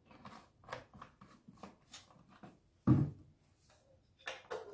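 Handling noises: the plastic cap of a chain-oil bottle is screwed on with small clicks and rattles, and a single solid thump about three seconds in as the bottle is set down. Near the end come a few sharper clicks as the chainsaw's chain oil filler cap is turned.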